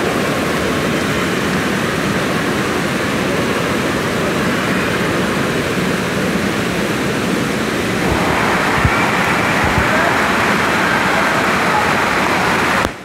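Steady rushing noise of splashing water and crowd din echoing through an indoor water park hall, a little brighter from about eight seconds in.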